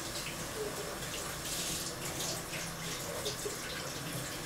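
Water running from a kitchen tap and splashing unevenly into the sink.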